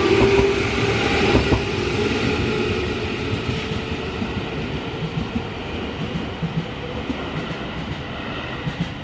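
Senseki Line train passing a level crossing and running away, its rumble and wheel clatter fading steadily. A steady tone fades out in the first second and a half.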